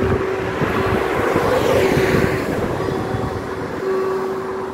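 Level-crossing warning bells sounding a steady ringing tone that breaks off briefly and resumes. A passing car's tyre and engine noise swells and fades about two seconds in.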